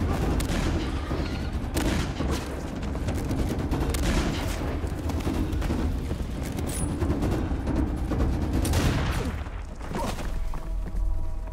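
Volleys of gunshots, many shots overlapping in quick succession, over a dense low rumble; near the end the shooting thins out and a music score with held notes comes in.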